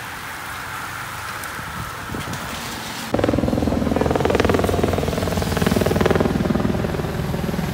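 Steady hiss of rain and bicycle tyres on a wet road. About three seconds in, it cuts abruptly to a much louder engine running with a fast, even pulse.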